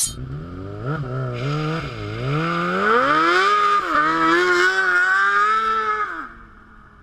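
Sport bike engine revving hard, its pitch rising and falling, while the rear tyre spins in a smoky burnout with a hissing tyre squeal; about six seconds in the sound drops away quickly as the bike rides off.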